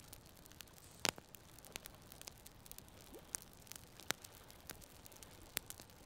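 Small campfire of split kindling crackling: irregular sharp pops and snaps over a faint low hiss, the loudest pops about a second in, about four seconds in and near the end.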